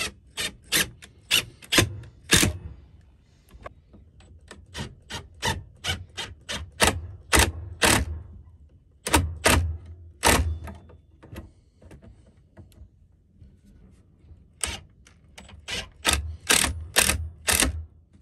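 Cordless Makita driver driving screws in short trigger bursts, each burst a sharp rattling click, in irregular runs of a few a second with short pauses between.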